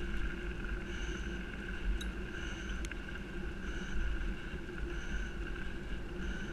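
Wind rumbling on a fast-moving camera, with a steady high whir of wheels rolling along a forest path behind a pulling dog; two sharp clicks about two and three seconds in.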